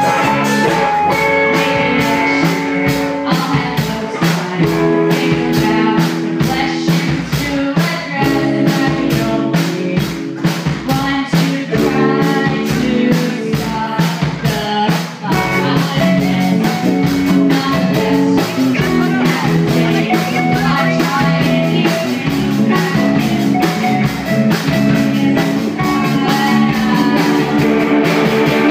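Live rock band playing a song: electric guitars, bass, keyboard and drum kit, with a woman singing.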